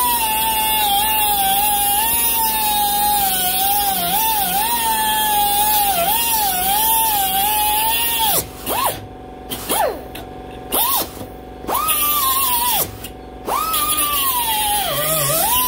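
Central Pneumatic composite air die grinder with a cut-off wheel cutting through 7/8-inch hot-rolled steel bar: a steady high whine over a hiss, its pitch dipping and wobbling as the wheel is pressed into the cut. From a little past halfway it is let off and spun back up several times, the whine falling away and rising again in short gaps.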